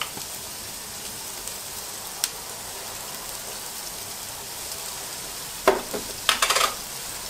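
Onion, crushed garlic and spices frying in olive oil in a stainless steel stockpot, giving a steady sizzle. A single click comes about two seconds in, and a brief clatter about six seconds in.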